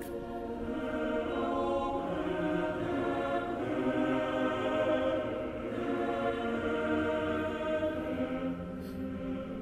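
Background choral music: voices holding slow, sustained chords that change every second or two.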